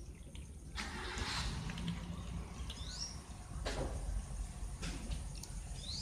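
Low rumble of passing traffic, with a hiss that swells about a second in. A small bird gives a short rising chirp twice, and a few sharp clicks come from cats crunching dry kibble.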